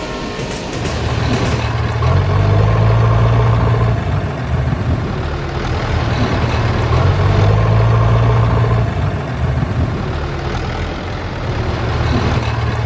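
An engine running at a steady pitch, its sound swelling louder for a couple of seconds about every five seconds.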